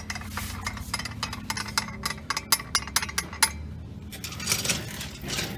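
Light metallic clicks and clinks of a steel clutch removal tool being threaded into a Can-Am X3 primary clutch by hand until it bottoms out. The clicks come irregularly and thickest in the first three seconds or so, then thin out.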